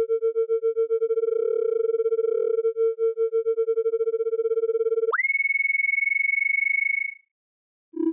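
A pulsing synthesizer tone around 450 Hz that glides sharply up to a high steady pitch about five seconds in, holds for about two seconds, then stops.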